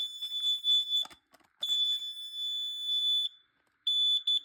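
Smoke alarm sounding its high-pitched horn in long beeps, each more than a second long, set off by smoke test spray. Near the end it breaks into a few short, quick beeps.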